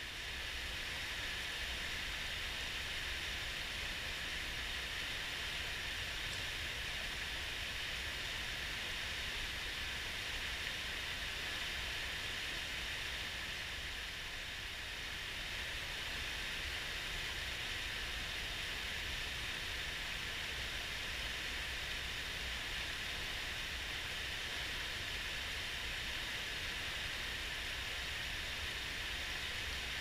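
Mountain stream rushing steadily: a constant hiss of flowing water with a low rumble underneath.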